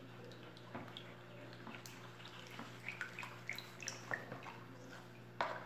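Liquid soap batter of oil and lye solution being stirred by hand with a plastic spoon in a plastic bowl: small sloshes and drips with scattered light clicks, the loudest near the end, over a steady low hum.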